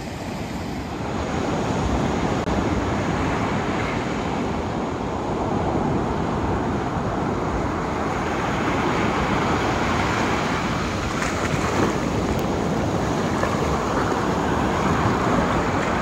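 Ocean waves breaking and washing through the shallow surf, a steady rushing noise, with wind on the microphone.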